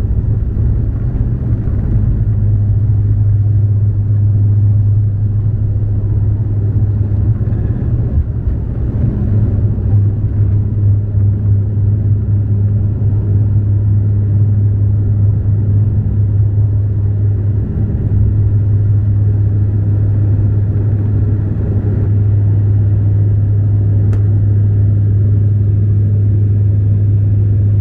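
Cabin sound of a Bombardier Dash 8 Q400's Pratt & Whitney PW150A turboprops at takeoff power: a loud steady drone dominated by a low propeller hum, over a rumble.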